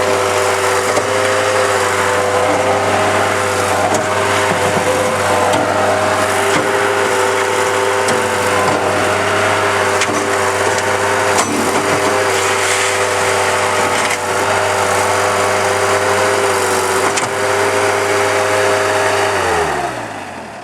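Bobcat T140 skid steer loader's diesel engine running steadily at a high idle, with a few faint knocks, then shutting off and winding down near the end.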